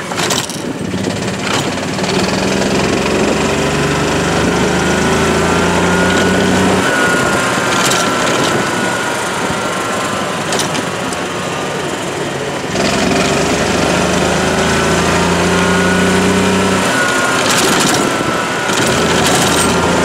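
Small engine of a golf-style work cart running while it drives. Its note holds steady, drops about seven seconds in, picks back up near thirteen seconds and drops again near seventeen seconds, with a few short rattling clicks along the way.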